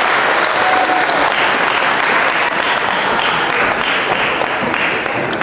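An audience applauding, the clapping dying away at the end.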